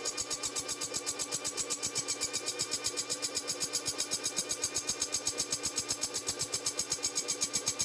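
Drill press spinning a bent drill-winch shaft against a grinder to round it off, a steady mechanical run with an even pulsing of about seven beats a second.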